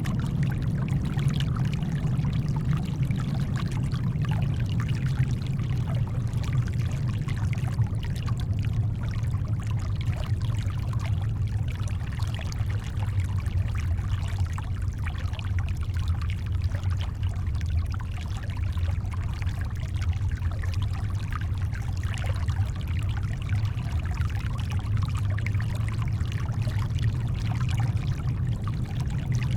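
Steady, deep brown noise mixed with the gentle wash of shoreline water, a continuous even hiss with no distinct wave breaks.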